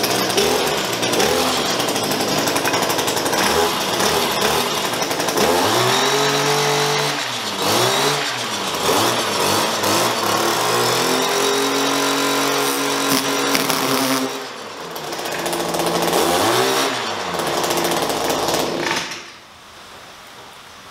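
Two-stroke gas stick edger running with its blade spinning, revved up and down several times and held at high speed for a few seconds while it cuts a plastic shipping strap, then throttled back near the end.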